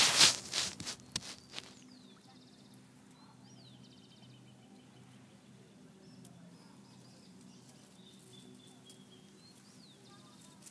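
A loud rush of noise with a few crackles dies away in the first second and a half. It leaves a faint outdoor background: a steady low hum with occasional short bird chirps.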